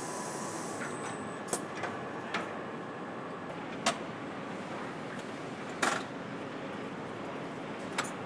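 Steady hum of engine assembly-line machinery, with sharp metallic clicks and clacks every second or two and a short hiss right at the start.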